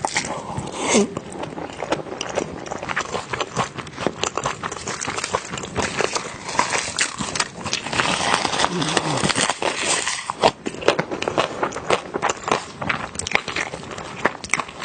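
Close-miked eating sounds: chewing and lip smacks made up of many sharp, wet clicks, with a few short hummed voice sounds from the eater.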